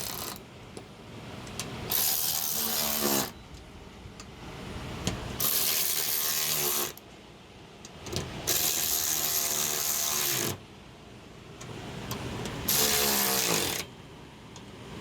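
Power drill fitted with a socket, run on bolts in four bursts of about a second each. Its motor winds down in pitch each time the trigger is released.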